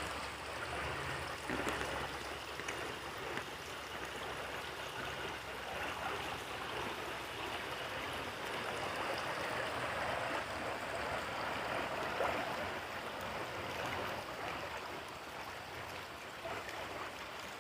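Steady, even rushing noise of the outdoors, with no distinct events, of the kind a nearby stream makes.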